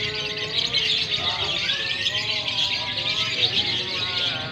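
Many lovebirds chirping at once in a dense, continuous high twittering, the birds singing in competition, with people talking beneath.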